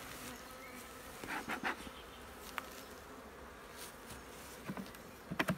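Swarm of honeybees buzzing around an open box hive with a steady hum, the bees stinging. A few brief knocks, about a second and a half in and again near the end.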